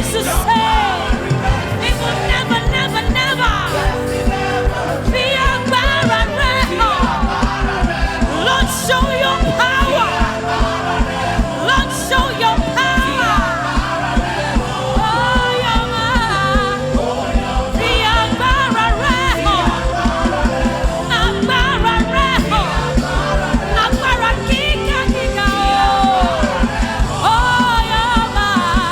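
Church praise music: voices singing over a band with a fast, steady beat.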